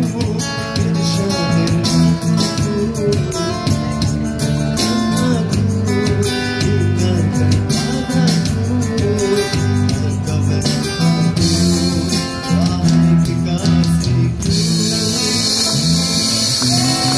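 Live band playing a song on electric guitars and keyboard with a steady beat. About fourteen seconds in, a bright high hiss of percussion joins in.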